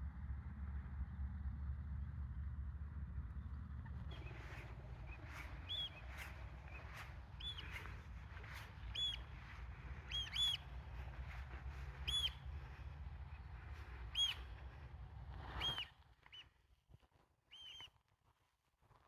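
A bird calling over and over, short arched high notes about once a second from a few seconds in, over a low steady rumble that stops about three seconds before the end.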